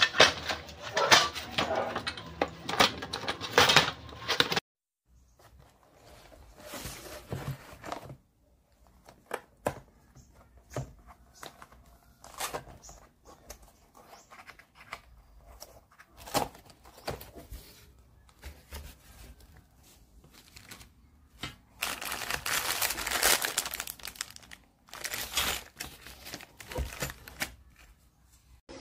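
Hands opening and handling a cardboard box and its plastic-wrapped contents: irregular rustling, tapping and scraping, with quieter gaps, and louder crinkling in the last several seconds.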